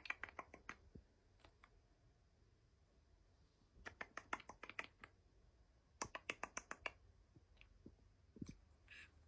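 Quick runs of sharp mouth clicks, about eight to ten a second, in three bursts of about a second each, with a few single clicks near the end: clicking noises traded between a man and the cockatoo copying him.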